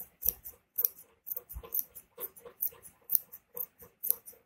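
Tailoring scissors snipping through two layers of fabric, a rapid run of short cuts at about three to four a second.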